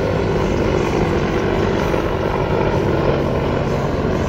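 Several AH-64 Apache military helicopters flying past, a steady rotor and turbine noise with no rise or fall.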